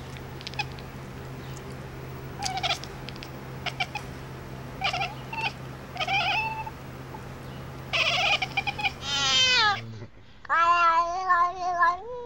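Cats meowing: several short meows, then a long meow that falls in pitch about nine seconds in, and a drawn-out wavering yowl near the end.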